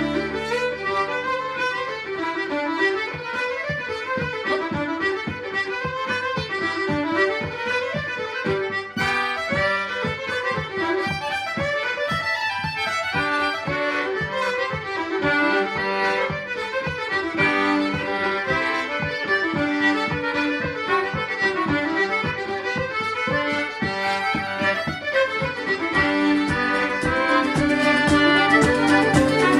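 Live traditional Irish instrumental tune: a fast, repeating melody over a steady strummed beat. A fuller low bass comes back in near the end.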